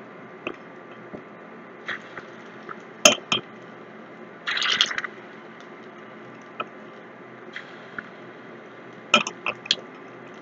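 Hot oil sizzling steadily in a steel kadai as sweet maida bonda batter is dropped in to deep-fry, with a few sharp taps and a short louder splash of sizzling about four and a half seconds in, and more taps near the end.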